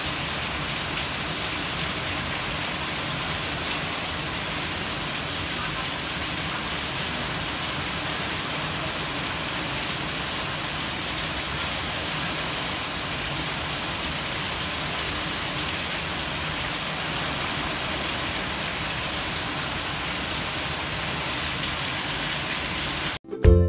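A steady, even rushing hiss, like heavy rain, at a constant level. It cuts off abruptly just before the end, where music begins.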